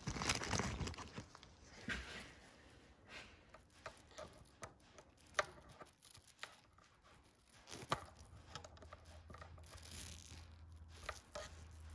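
Needle-nose pliers and hands working small plastic caps out of a BMW VANOS unit: rustling handling noise, then scattered sharp little clicks. A faint low hum comes in during the second half.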